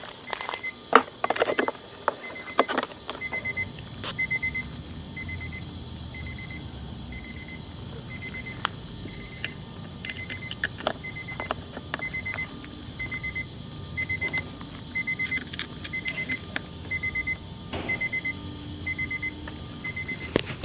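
Steady electronic beeping, one short beep about every second, over a constant high whine and a low rumble. There are a few sharp knocks and clatter in the first seconds.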